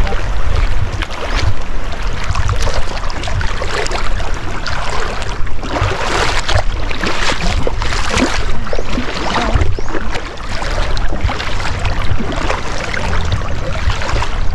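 Footsteps wading through shallow river water, a splash and slosh with each step, loudest midway through. Wind rumbles on the microphone underneath.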